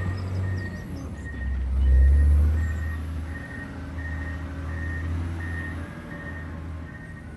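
John Deere 670 GP motor grader's diesel engine running, swelling about two seconds in and then fading away, while its back-up alarm beeps steadily about one and a half times a second as the grader reverses.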